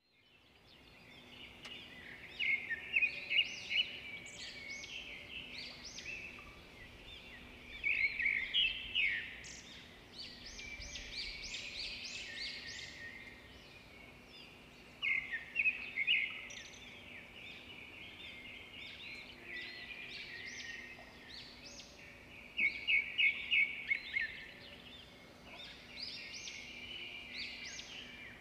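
Small birds chirping and twittering, with a loud burst of quick repeated notes every several seconds, over a faint steady hum.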